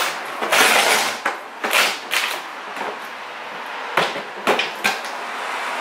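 Plastic wrapping of new hand tools rustling and crinkling as they are handled, then a few sharp clicks and knocks of a plastic Stanley toolbox being handled near the end.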